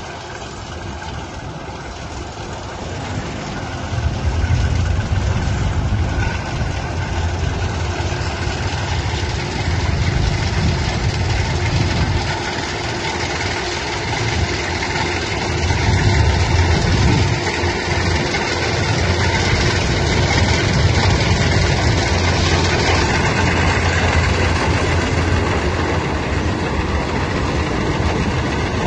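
Heavy machine's engine running steadily at a harvest. It grows louder about four seconds in, then swells and eases as its load changes.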